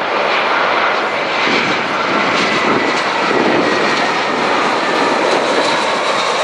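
Jet noise from an Airbus A320-214's CFM56-5B turbofans, loud and steady as the airliner passes close by, a broad rushing roar with a faint high whine over it.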